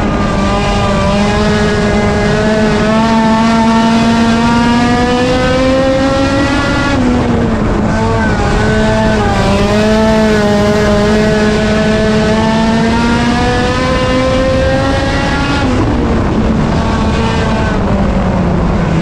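A front-wheel-drive compact race car's four-cylinder engine at high revs during a race, held steady at full throttle. It eases off briefly about a third of the way in and again near the end before picking back up, as it would through the corners.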